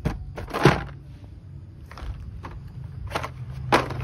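Plastic blister-packed toy cooking sets being handled and set into a plastic tub: a series of sharp plastic rustles and knocks, the loudest just under a second in.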